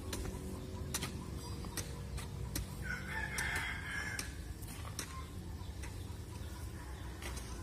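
A rooster crows once, about three seconds in, for about a second. Irregular sharp knocks of hoe blades chopping into soil sound throughout.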